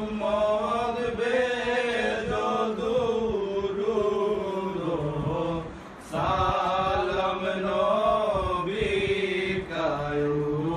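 Male voices chanting a devotional salam to the Prophet, unaccompanied, in a slow melody with long sliding notes. There is a short break a little past halfway, then the chant resumes.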